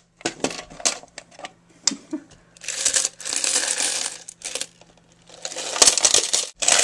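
Coins poured from a jar into a Rubik's Cube money box. Scattered clinks give way to a rush of many coins about two and a half seconds in, then more clinks and a second rush near the end.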